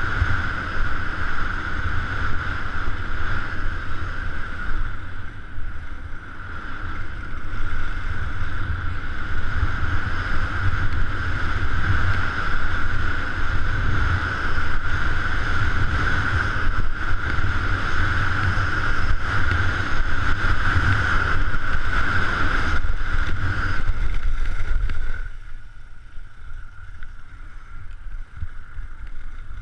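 Wind buffeting the microphone and skis sliding over packed snow during a fast downhill run, a steady low rumble with a hiss over it. About 25 seconds in it drops off sharply as the skier slows near the bottom of the slope.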